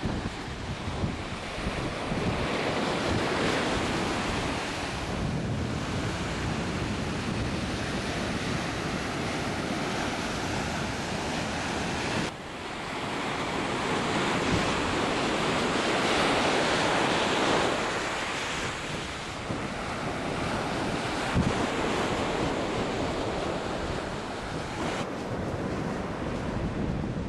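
Ocean surf breaking and washing up a beach, swelling louder twice as waves come in, with wind buffeting the microphone.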